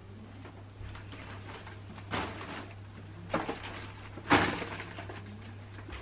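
Household handling noises: three short rustling, knocking sounds about two, three and four seconds in, the last the loudest, over a steady low hum.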